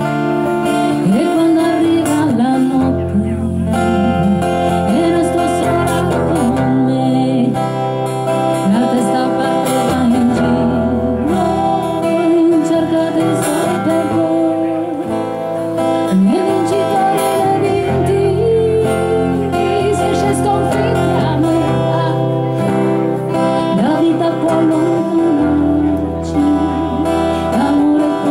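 Live acoustic music: two acoustic guitars strumming chords while a woman sings a melody into a microphone.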